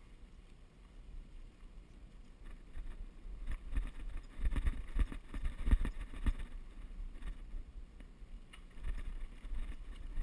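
Mountain bike rattling and jolting over a rocky dirt trail, with a run of sharp knocks in the middle as it crosses loose stones, over a low rumble of wind on the microphone.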